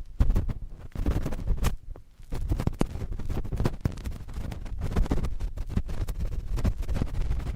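Cotton swabs scratching and rubbing directly on a microphone: a dense run of rapid scratchy clicks with a short lull about two seconds in.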